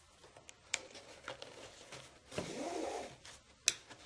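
Faint sounds of a shoelace being fed through a canvas sneaker's eyelets. The lace rubs for under a second about halfway through, with a sharp tick about a second in and another near the end.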